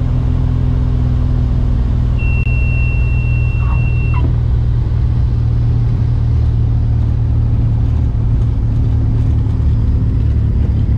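1975 Mooney M20F's fuel-injected four-cylinder Lycoming IO-360 engine and propeller running with a steady deep drone, heard inside the cockpit while the plane rolls along the runway. A steady high beep sounds for about two seconds, about two seconds in.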